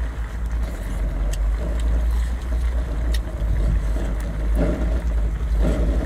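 Steady deep rumble with a man chewing seafood over it: faint wet clicks of chewing, and a couple of short closed-mouth hums near the end.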